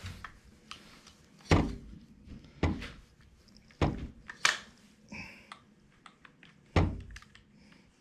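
Handling knocks from a small battery chainsaw and an oil bottle being worked on a hard surface: about five dull thunks spread over several seconds, with lighter clicks between.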